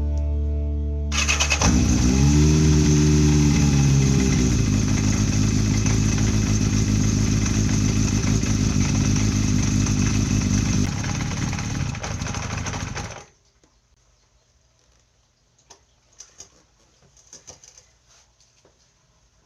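Kawasaki Zephyr 750's air-cooled inline-four starting about a second in, revving up and settling, then running steadily until the sound stops abruptly about two-thirds of the way through. After that only a few faint ticks are heard.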